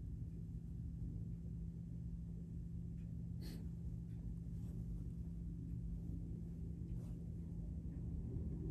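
Steady low hum and room noise, with one sharp faint click near the middle and two fainter clicks later.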